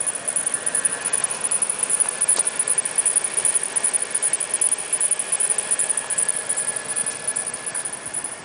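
Squeak from the engine bay of a Range Rover Sport: a high-pitched chirping that repeats rapidly, several times a second, over a steady noise.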